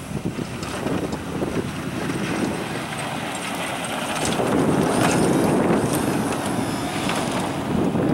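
Pickup truck with a Western straight snowplow blade pushing snow as it drives up close to the microphone. The engine and the plowing get louder about four seconds in.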